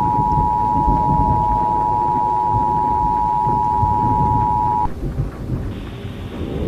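Emergency Alert System attention signal: the steady two-tone alarm, which cuts off suddenly about five seconds in. Under it runs a low rumble of thunder.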